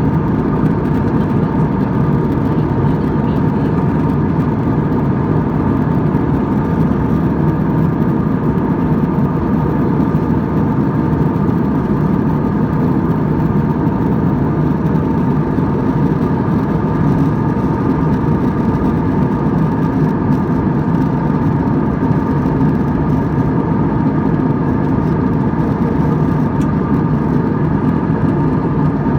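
Steady jet engine and airflow noise of an airliner in flight, heard inside the passenger cabin: an even, unchanging rush with a few faint steady tones above it.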